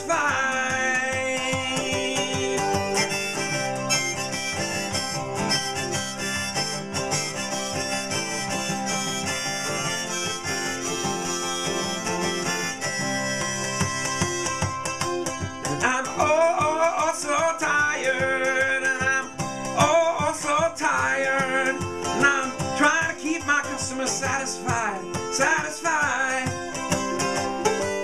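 Harmonica in a neck rack playing an instrumental solo over a strummed twelve-string acoustic guitar. After about the middle the harmonica line turns busier, with quick wavering and bent notes.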